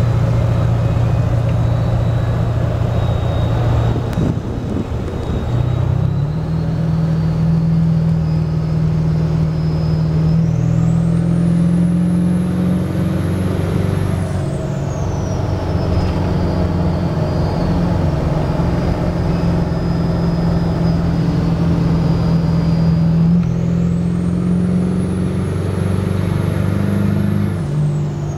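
2002 Ford 7.3L Powerstroke V8 turbo diesel with a BD Thruster 2 turbocharger, running with a steady high turbo whistle over the diesel rumble. Twice the engine picks up and the whistle climbs to a much higher pitch, holds for a few seconds, then falls back.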